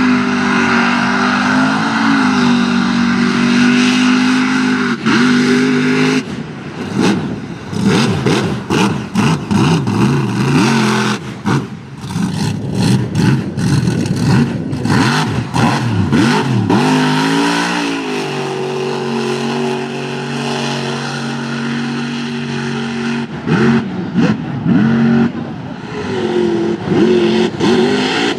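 Supercharged mud-truck engine running hard and loud. It is held at steady revs at first, then turns choppy and stutters for several seconds. It then revs up and down, settles at a steady pitch for a few seconds, and revs again near the end.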